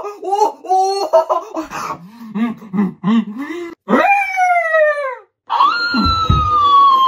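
Laughter in short bursts, followed by two long cries that fall in pitch, the second with a low thud under it about six seconds in.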